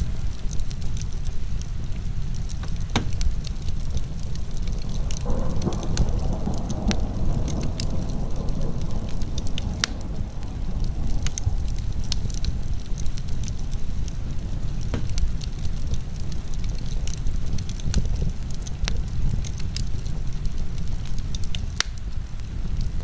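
A wood fire crackling, with many sharp pops and snaps, over a steady low rush of heavy rain. A duller swell of rushing sound rises about five seconds in and fades out several seconds later.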